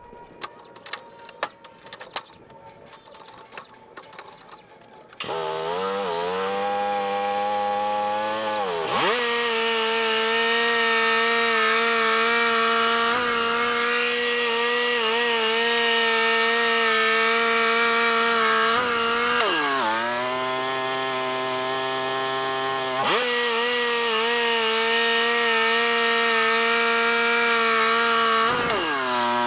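Wood-Mizer LT35 band sawmill's engine coming up to speed with a rising pitch about five seconds in, then running steadily under load as the band blade cuts through a yellow pine log. The pitch dips briefly twice, once about two-thirds through and again near the end.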